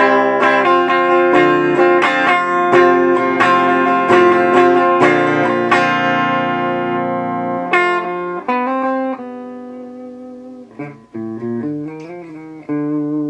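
Clean electric guitar with Seymour Duncan JB pickups, played on the middle pickup position: strummed chords ring out for most of the first eight seconds, then give way to sparser, quieter picked notes and chords.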